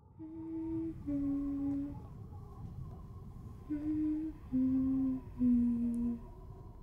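A person humming a slow, lullaby-like tune in separate held notes that mostly step down in pitch, over a low steady rumble.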